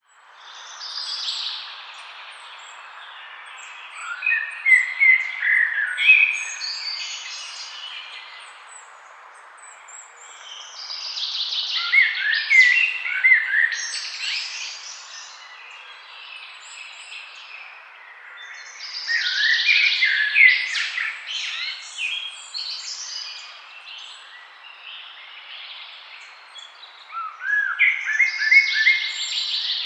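Birds singing in a forest: a song phrase of quick rising and falling notes comes back about every eight seconds, four times, over a steady faint hiss.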